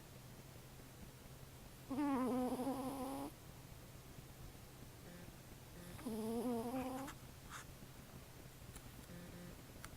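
Cat snoring through a blocked, troubled nose: two long, wavering, whistly snores about four seconds apart, and a fainter one near the end.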